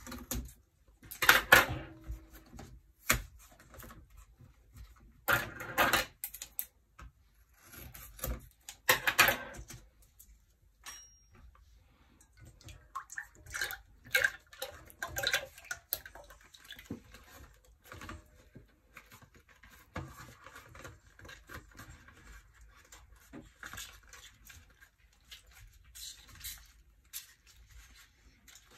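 Scissors cutting open a cardboard carton of whipping cream with several loud rustling snips in the first ten seconds. Then the cream pours from the carton into a stainless steel mixing bowl, and a paper sachet rustles near the end.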